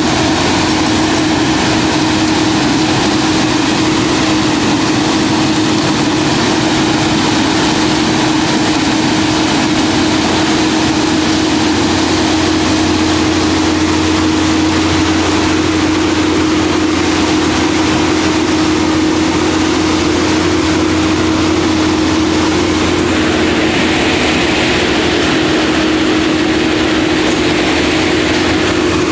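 A Plasser & Theurer PBR-400U-RS ballast regulator running steadily, its engine and machinery holding a constant hum over an even mechanical drone.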